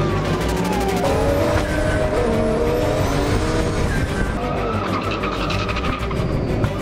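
A car's engine revving hard, its pitch rising and falling as it drifts, with tires squealing. Background music plays underneath.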